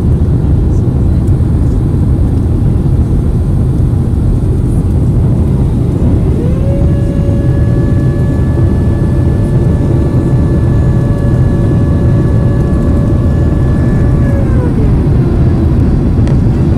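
Loud, steady cabin rumble of a Boeing 767 airliner on its landing approach. About six seconds in, a mechanical whine rises in pitch and holds steady for about eight seconds. Near the end it glides back down and fades.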